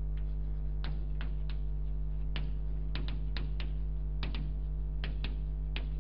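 Chalk tapping and clicking against a blackboard as words are written, about a dozen short irregular taps, over a steady electrical hum.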